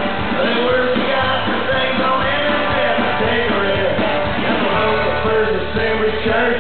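Live red dirt country-rock band playing loudly: strummed acoustic guitar and a drum kit, with a man singing over them.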